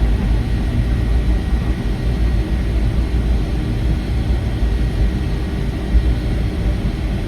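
Cabin noise inside a Boeing 757-300 after landing: a steady, low rumble of the airframe and its Rolls-Royce RB211 engines as the plane rolls along the ground.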